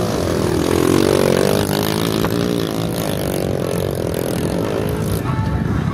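Dirt bike engine revving hard under load as it climbs a steep hill, its pitch rising in the first second and then holding high.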